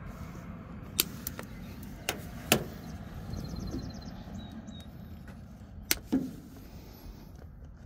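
Diagonal cutters snipping off zip-tie tails: about six sharp snips, roughly in pairs, over a low steady background rumble.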